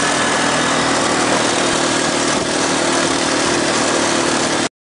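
ATV engine running steadily while under way on a trail, over a steady hiss; it cuts off suddenly near the end.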